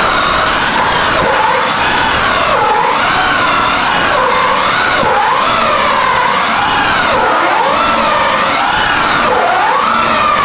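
Electric drill motor running continuously under load, its whine rising and falling in pitch as the load on the bit changes.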